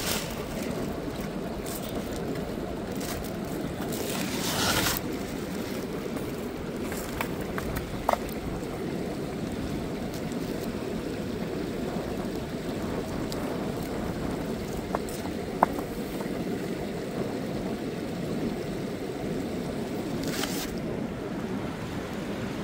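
Ocean surf washing steadily, with a couple of louder rushes of wind or water and a few sharp clicks.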